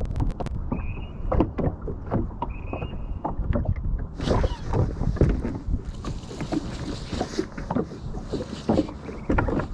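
Small waves slapping irregularly against the hull of a bass boat. Wind hiss on the microphone sets in about four seconds in.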